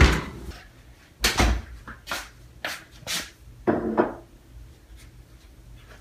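Kitchen oven door shut with a sharp thud, followed by several lighter knocks and clunks over the next few seconds.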